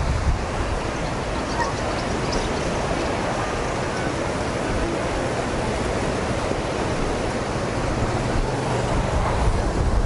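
Steady rushing of wind and sea surf, with heavier wind buffeting on the microphone at the start and again near the end.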